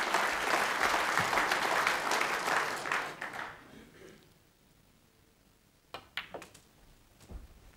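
Audience applauding, dying away about three and a half seconds in. A few sharp clicks of snooker balls follow, a quick cluster about six seconds in and another near the end.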